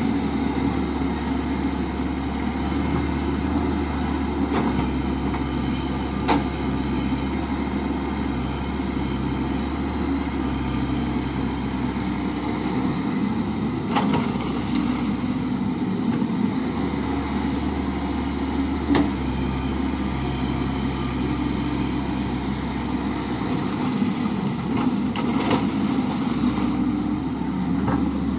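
Komatsu excavator's diesel engine running steadily under work, with a few faint sharp clicks over it.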